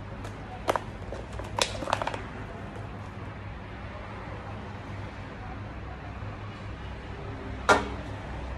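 Thin plastic takeaway container and its bag being unwrapped and the clear lid opened, with a few sharp crinkly clicks in the first two seconds. Near the end comes a single loud knock as an aluminium drinks can is handled on the table, over a steady low hum.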